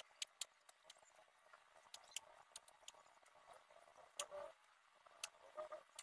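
Faint, scattered ticks and scratches of a graphite pencil shading on paper, with a brief faint tone about four seconds in.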